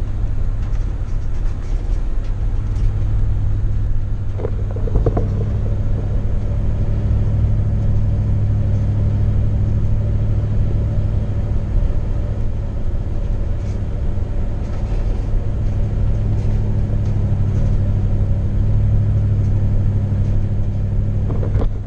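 Steady low rumble of a vehicle's engine and road noise heard inside the cabin while driving.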